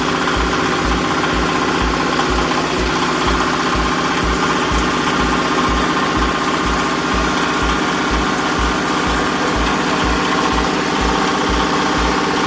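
Diesel engine of a hydraulic baling press running steadily, with a regular low thump about two to three times a second.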